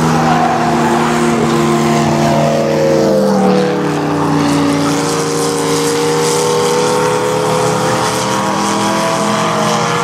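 Engines of several small stock cars, chained together into trains, running together as a pack laps the oval, with overlapping engine notes slowly rising and falling in pitch.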